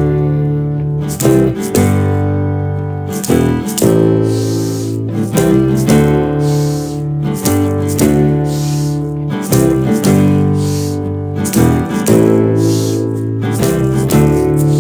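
Instrumental band backing with no vocals: strummed guitar over steady bass notes, with a shaken rattle keeping the beat. This is the bare backing track of the break where the sound effects were later added.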